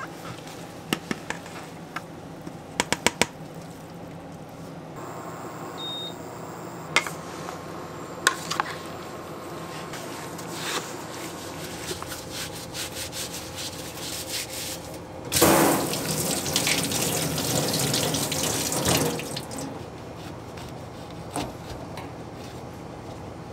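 Tap water running into a stainless steel sink for several seconds while a lemon is rinsed under it. Before that come a few sharp metallic clinks.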